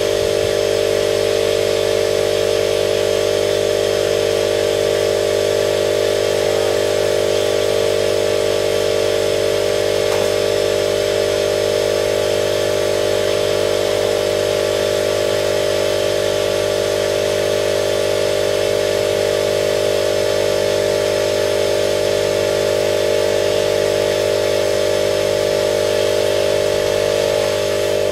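Air compressor motor running steadily without a break, a loud even hum with a hiss above it.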